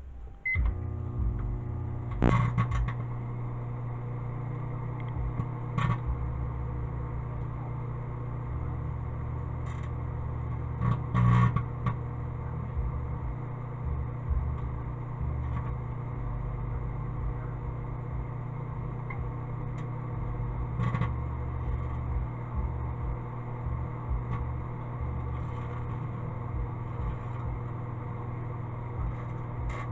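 Microwave oven running with a steady hum, broken by a few sharp crackling snaps from grade 0000 steel wool sparking inside it.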